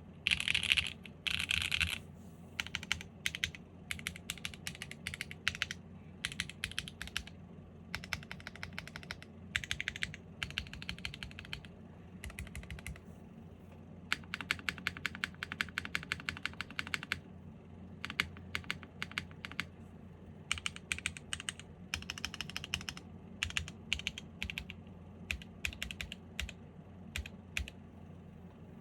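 Mechanical keyboard typing in irregular bursts of fast keystrokes with short pauses, loudest in the first couple of seconds. The board is a 7V custom keyboard with an aluminium plate, no foam or dampening, factory-lubed HG (Haimu x Geon) Black switches and GMK Striker keycaps.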